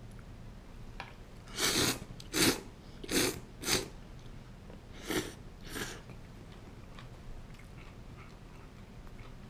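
A person slurping miso ramen noodles: four loud sucking slurps in quick succession, then two more after a short pause.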